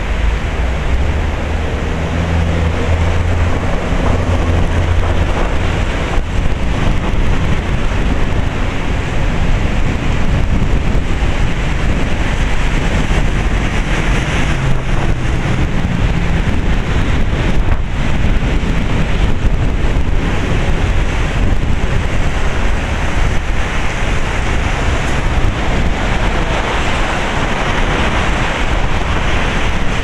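Heavy typhoon rain pouring steadily in a loud, even downpour, mixed with wind, and a low rumble on the microphone in the first few seconds.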